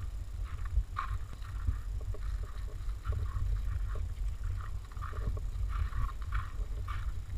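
Irregular crunching steps on a gravel path, over a steady low rumble of wind on the microphone.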